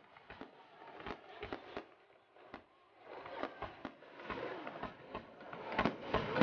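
Fireworks going off: scattered sharp pops and crackles that grow denser and louder near the end.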